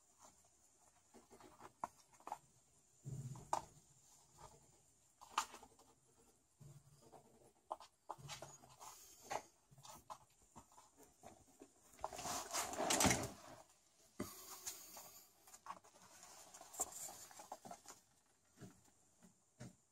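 Kittens' paws and claws scrabbling and tapping on a wooden floor as they play, in faint scattered scratches and clicks, with a louder rustle about twelve seconds in.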